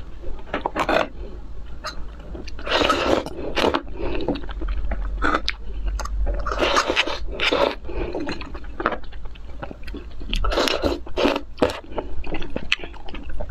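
Close-miked eating sounds: a spoon scraping scallop shells, and chewing of scallop with glass noodles, coming in several bursts of short, wet clicks.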